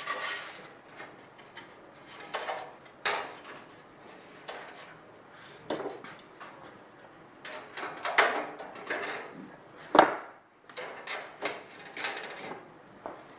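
Aluminum wing ribs and spar parts being handled and shifted: irregular clacks, knocks and scraping rubs of thin sheet metal, with the loudest sharp knock about ten seconds in.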